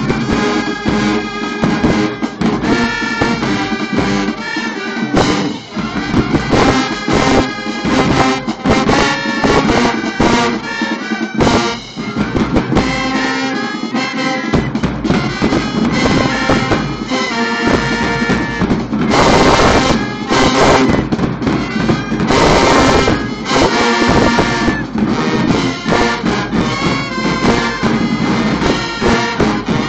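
High school marching band playing, brass and drums together. Two loud noisy crashes come about two-thirds of the way in.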